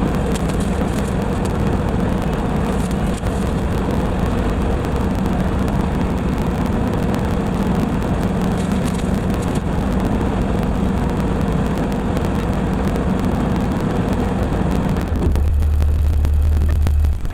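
LS MT240e compact diesel tractor running steadily under load while brush hogging with a rotary cutter. About two seconds before the end the sound changes to a heavy low rumble, then drops off.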